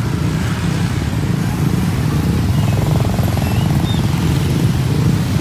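Motorcycle engines running close by, a steady low drone.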